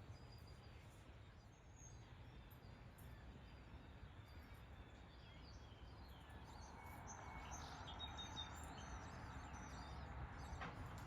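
Faint, scattered bird chirps over low outdoor background noise, with a soft hiss swelling about halfway through.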